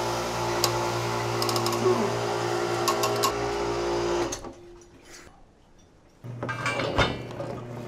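Steady machine hum with scattered clicks and knocks. It drops away about four seconds in and comes back near the end, with one sharp knock.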